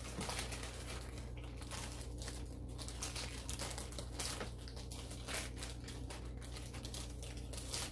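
Packaging crinkling and rustling in irregular bursts as a kitchen utensil is unwrapped, over a steady low hum.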